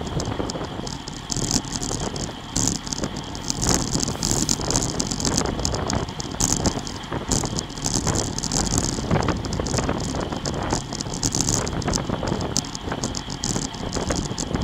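Road bike riding at about 30 mph: wind rushing over the bike-mounted camera's microphone and tyres running on asphalt, with a constant rattle of the camera and bike over the road surface.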